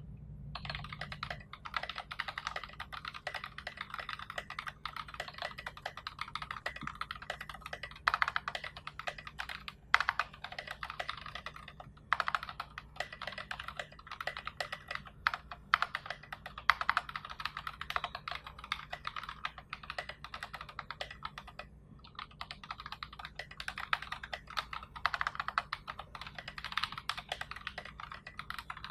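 Mechanical keyboard typed on fast and steadily: NovelKeys Box Royal tactile switches in a 3 mm acrylic plate with SA profile keycaps, a dense run of keystroke clacks with brief pauses around ten, twelve and twenty-two seconds in.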